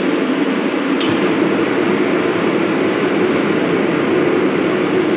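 Mr. Heater propane forced-air heater running, its blower and burner making a loud, steady rushing noise, during a test of its new solenoid gas valve. A single sharp click about a second in.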